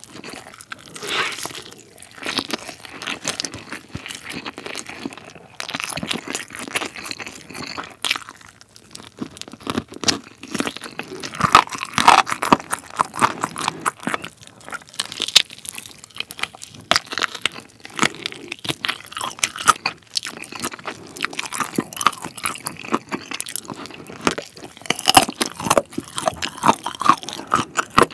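Close-miked eating: a person bites and chews a chicken drumstick, with wet chewing broken by many sharp crunches as the cartilage at the bone end is crushed between the teeth.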